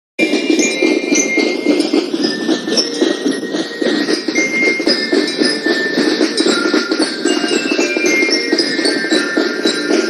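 Music with bright bell-like notes over a dense lower accompaniment, with a run of falling bell notes about seven seconds in.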